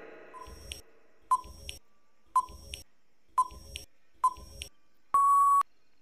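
Quiz countdown timer sound effect: five short electronic beeps about a second apart, then one longer steady beep about five seconds in that ends the countdown.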